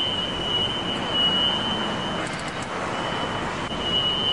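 Steady mechanical background noise with a constant high-pitched whine running through it, and a few light clicks about two seconds in.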